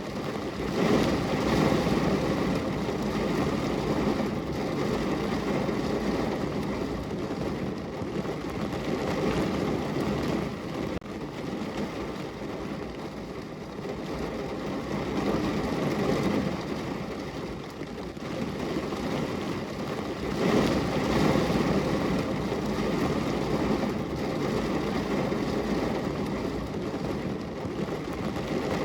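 Rain falling on a car's windows and roof, heard from inside the car: a dense, steady drumming that swells louder in waves a few times.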